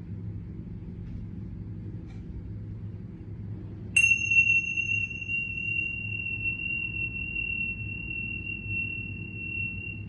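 A high ringing tone starts sharply about four seconds in and holds steady over a low hum; its brighter upper tones fade within a second or two.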